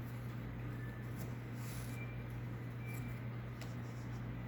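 Faint rustling and sliding of Pokémon trading cards being handled and flipped through, with a few light clicks, over a steady low hum.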